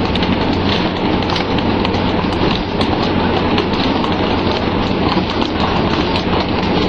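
Steady rain-like hiss of water spraying and splashing aboard a pole-and-line fishing boat, with many short sharp slaps and knocks and a steady low engine hum underneath.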